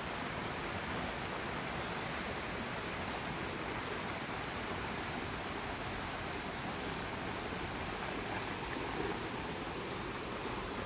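Shallow woodland stream running over rocks: a steady, even rush of water.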